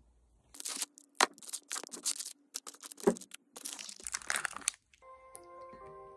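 Thin cellophane wrappers on individually wrapped macarons crinkling and crackling as they are handled, a dense run of sharp crackles lasting about four seconds. Soft music with held notes comes in near the end.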